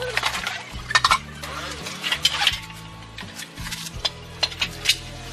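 Steel workbench legs and rails clinking and knocking as they are unpacked and set down on a hard floor, a scatter of sharp metallic knocks over steady background music.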